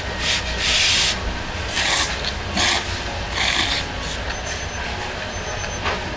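A person slurping ramen noodles, about five loud sucking slurps in quick succession over the first four seconds, then only softer eating sounds, over a steady low hum.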